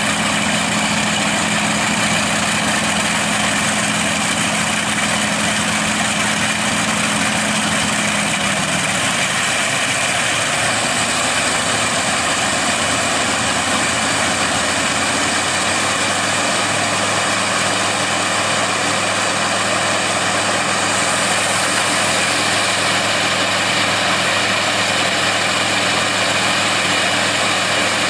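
Two trailer-mounted radial aircraft engines, one a Bristol Hercules 14-cylinder sleeve-valve radial, running steadily with propellers turning on a ground run. The engine note shifts about 9 seconds in and again around 16 seconds in.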